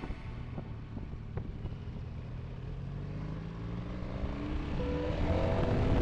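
Motorcycle engine pulling under acceleration, its pitch rising steadily, with road and wind noise. Music fades back in near the end.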